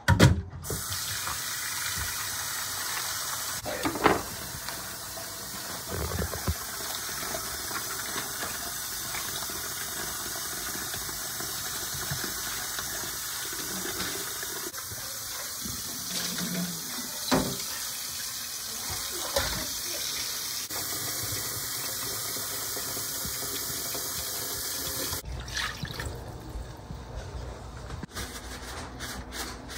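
Kitchen tap running into a bowl in a stainless steel sink while raw chicken pieces are rinsed and rubbed by hand, with a few knocks along the way. The water stops a few seconds before the end.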